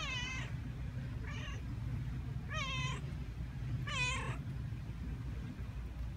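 Domestic cat meowing four times, short calls a little over a second apart, the second one fainter, over a steady low background rumble.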